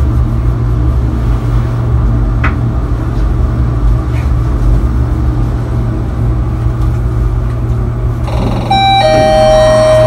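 Passenger lift car travelling up with a steady low hum, then about a second and a half before the end a two-tone descending arrival chime, a short higher note and a longer lower one, as the car reaches its floor.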